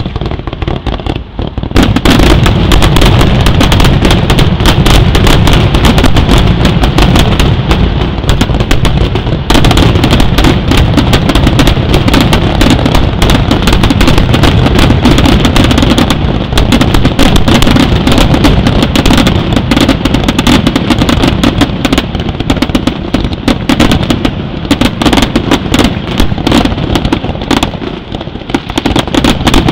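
Aerial fireworks shells bursting in a rapid, continuous barrage: a dense stream of bangs and crackles, very loud, which grows sharply louder about two seconds in.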